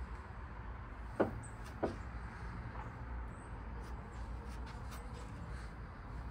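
Steady low background rumble, broken about a second in by two brief sharp sounds roughly two-thirds of a second apart.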